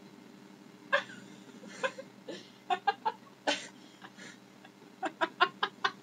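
Two girls laughing: scattered short bursts of laughter, then a quick run of short, rapid laughs about five seconds in.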